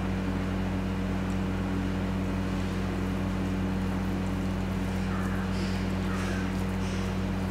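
A steady low hum with several pitched tones over an even hiss, with a few faint small sounds about five to six and a half seconds in.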